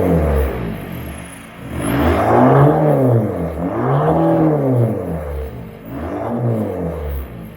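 2006 Volkswagen Jetta TDI's 1.9-litre four-cylinder BRM diesel engine being revved in three blips, the pitch rising and falling back each time, about two, four and six seconds in.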